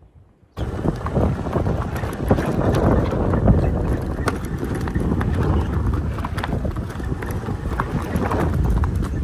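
Hoofbeats of a Kathiyawadi horse running fast on a dirt road, with wind buffeting the microphone. They start abruptly about half a second in.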